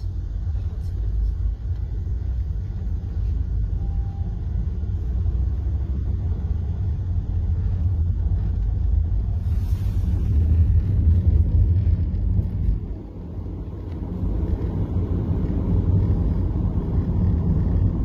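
Steady low rumble of road and engine noise heard from inside a moving car's cabin, briefly dropping away about thirteen seconds in before building again.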